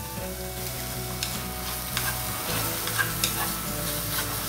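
Egg and julienned carrot sizzling in sesame oil in a frying pan while being stirred and scrambled with chopsticks, with a few sharp taps of the chopsticks against the pan.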